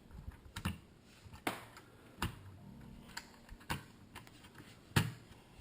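Scattered sharp clicks and taps of hard plastic and metal as a CPU cooler fan is handled and set down onto the processor on the motherboard. The taps come irregularly, about one every second, the loudest about five seconds in.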